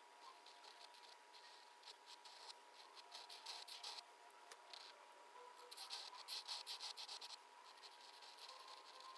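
Flex-nib pen scratching faintly across paper in short, quick strokes, with rapid runs of hatching strokes about three seconds in and again around six to seven seconds in.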